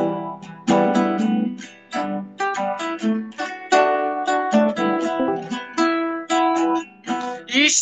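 Acoustic guitar played solo as an instrumental lead-in to a song: a run of single plucked notes and chords, each ringing and fading before the next, heard through a voice-chat connection.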